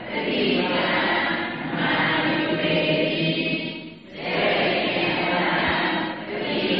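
Several voices chanting Pali verses together in a steady recitation, with a short breath pause about four seconds in.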